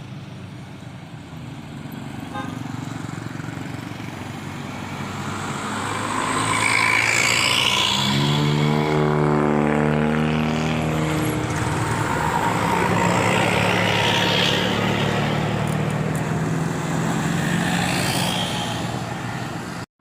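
A bus passing close by and sounding its multi-note 'telolet' horn: a run of horn tones stepping in pitch about eight seconds in, over the bus's engine and road noise, which grows louder and stays loud until it cuts off suddenly near the end.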